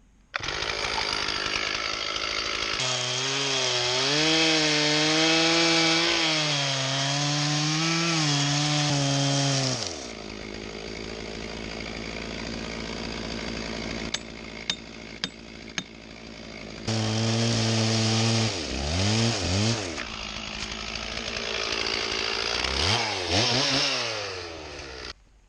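Stihl 044 two-stroke chainsaw cutting into a hickory log at high revs, its pitch wavering under load, then dropping back to idle for several seconds with a few sharp ticks. It is revved up and down twice more and stops abruptly near the end.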